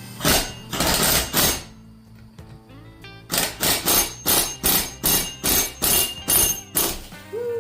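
Hammer blows on metal, ringing briefly after each: three heavy strikes, then a steady run of about ten at roughly three a second, knocking loose the flywheel and clutch of a Zenoah-clone two-stroke engine.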